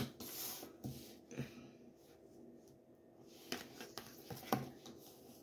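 Tarot cards handled and laid on a wooden table: a soft sliding rustle in the first second or so, then a few light taps and clicks later on.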